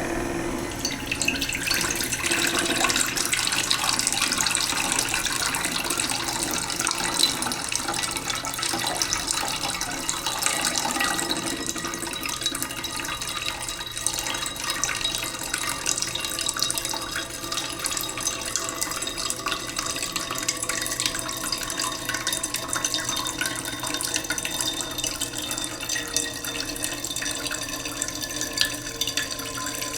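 Tap water running slowly into a cooking pot in a sink, a steady splashing stream. The pot's faint ringing note rises slowly in pitch as it fills.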